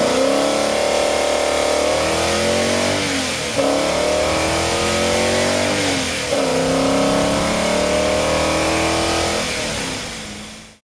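Aluminum 283 cu in Chevrolet V8, breathing through four twin-throat carburetors with open velocity stacks, heard from right beside the engine inside the cabin, accelerating hard. The engine pitch climbs, drops back at two gear changes, climbs again, then the sound fades out near the end.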